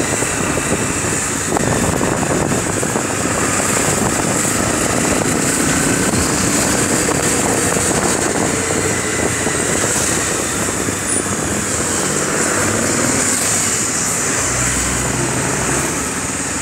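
Motorcycle engine running under way, heard from a helmet-mounted phone with air rushing over the microphone, easing off near the end as the bike slows behind a bus.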